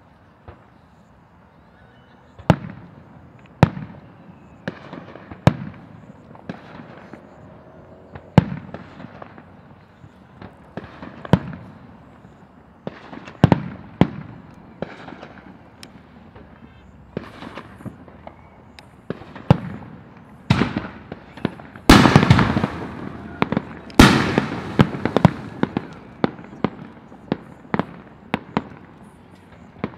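Aerial fireworks shells bursting, sharp bangs at irregular intervals, with a dense flurry of bangs about 22 to 25 seconds in that is the loudest part.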